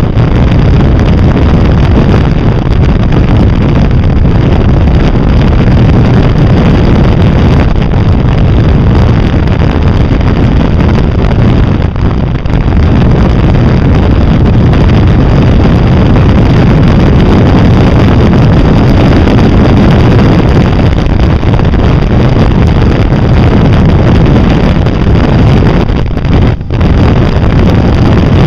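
Can-Am riding at road speed: loud, steady wind noise buffeting the camera's microphone, with the engine and road noise running underneath. The rush dips briefly twice, about twelve seconds in and near the end.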